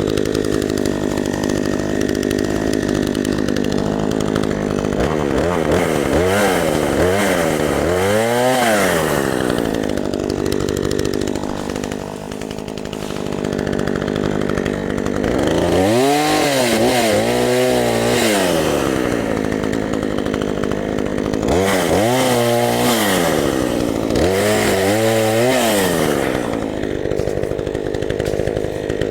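18-inch Craftsman two-stroke chainsaw idling, then throttled up and let back down to idle several times, each run a rise and fall in engine pitch.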